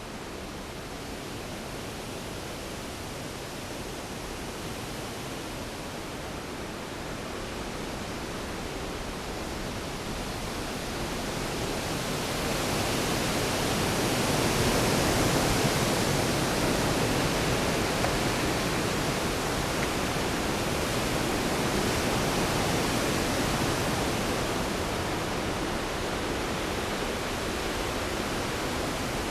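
Storm sound effect: heavy rain as a steady, even hiss that swells louder about a third of the way in, peaks near the middle and then eases a little.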